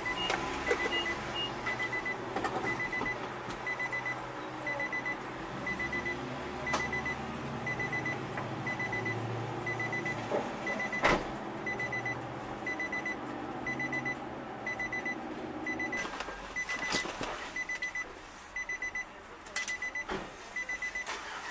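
Car's interior warning chime: a quick cluster of short beeps repeating about every three-quarters of a second, which stops about 16 seconds in. A single sharp knock is heard about halfway through.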